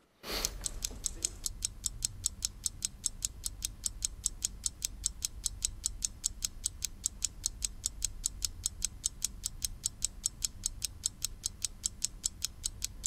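Countdown clock-tick sound effect: fast, even ticks, several a second, over a low hum, marking the 15 seconds allowed for the answer.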